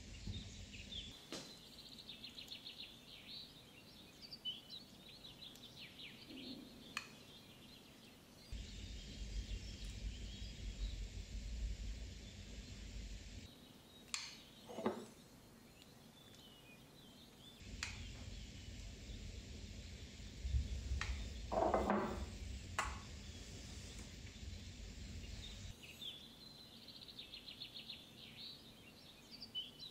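Small wire whisk stirring melted chocolate and cream in a bowl, with a few short clinks and scrapes against the bowl. Birds chirp faintly in the background over a low rumble of ambient noise.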